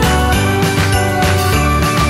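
Background music with jingle bells over a steady beat and a bouncing bass line.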